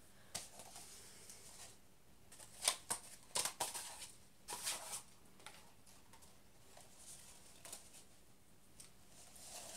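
Soft, scattered rustles and crinkles of shiny gold cardboard party hats being handled and fitted onto a head, in a few short clusters.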